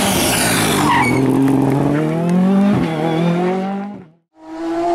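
Ford Fiesta R5 rally car passing close at speed, with tyre squeal as it goes by. The engine pitch climbs steadily under full throttle, breaks for a gearchange near three seconds, then fades, and the sound cuts off abruptly a second later.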